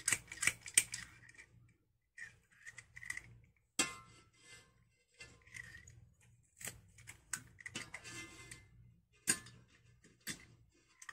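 Stainless steel garlic press crushing garlic cloves: short crunchy squeezes and sharp metal clicks from the press handles, in bursts with pauses between them.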